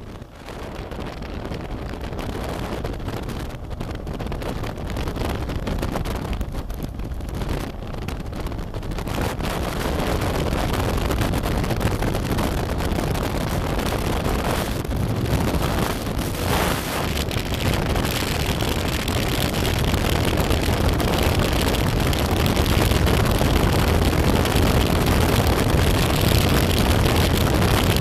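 Motorcycle riding with heavy wind noise on the microphone over the engine, growing louder over the first ten seconds or so and then holding steady.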